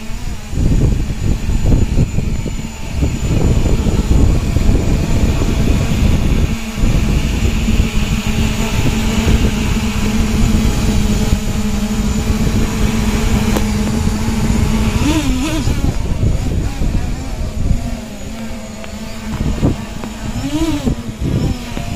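A 7-inch FPV quadcopter's brushless motors and propellers droning. They hold one steady pitch while it hovers, then swoop up and down in pitch several times over the last third as the throttle is blipped. A heavy low rumble of air buffets the microphone throughout.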